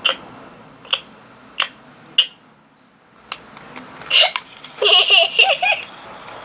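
Baby Alive doll's electronic voice giving a short laugh through its small speaker about four seconds in, after a few short clicks.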